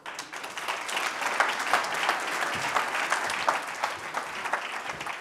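Audience applauding: many people clapping at once, starting suddenly.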